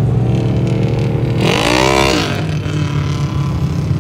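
Side-by-side UTV engine running steadily, with an engine revving up and back down briefly about a second and a half in.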